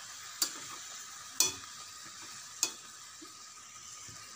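Stuffed brinjals frying in masala gravy in a kadhai with a steady sizzle. A metal spoon turning them knocks against the pan in three sharp clicks about a second apart.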